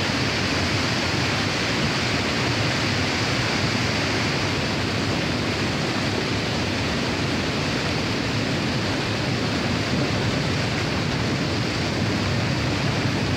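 Debris flow of mud and boulders moving down a rocky channel: a loud, steady rushing noise without separate knocks.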